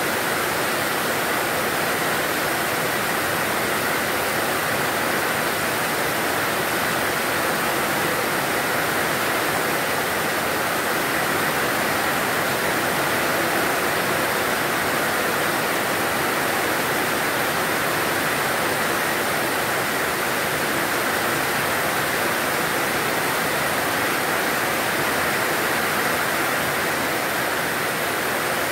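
Torrential rain pouring down in a heavy downpour, a steady, even rushing hiss with no letup.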